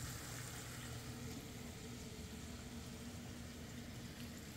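Oil bubbling and sizzling in a pot as battered fish pieces deep-fry, heard faintly and steadily, with a low steady hum underneath.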